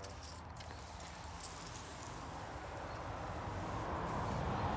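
Faint, steady fizzing and crackling of cleaning foam working on a car's engine bay, the cleaner sizzling as it lifts the dirt. It grows a little louder near the end.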